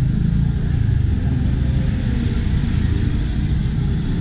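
City street traffic: cars and other motor vehicles running by in a steady low rumble.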